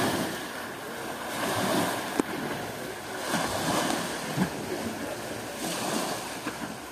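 Small waves washing and breaking on a rocky, pebbly shore, rising and falling in swells, with one sharp click about two seconds in.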